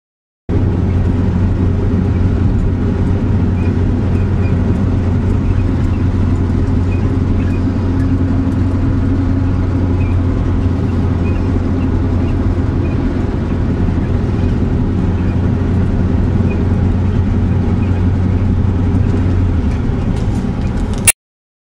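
Steady low drone of a car's engine and road noise inside a taxi's cabin. The deepest part of the hum drops away shortly before the sound cuts off with a click.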